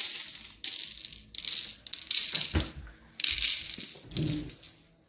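Small blue stones rattling as they are shaken out of a container, in six short bursts.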